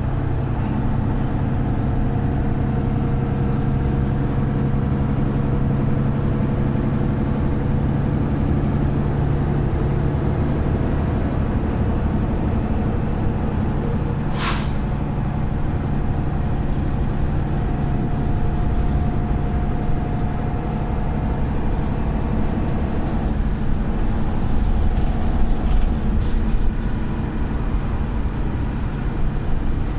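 Mercedes-Benz Citaro O530 bus's diesel engine running steadily, heard on board, with one short sharp hiss about halfway through: the bus's air system 'sneezing' as it blows off air. The engine gets slightly louder near the end.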